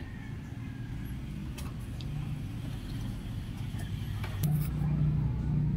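Low engine rumble of a vehicle, swelling louder near the end, with a few light clicks.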